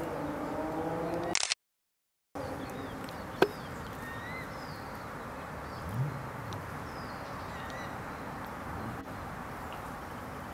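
Pond frog seized by a grass snake giving a long, wavering, cat-like distress wail, which breaks off about a second and a half in. After a brief dropout, only steady background with a few faint high chirps and one sharp click remains.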